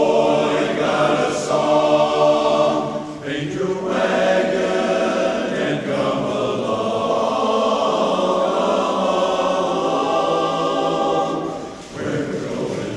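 A men's chorus singing in full chords, with two short pauses, about three seconds in and near the end.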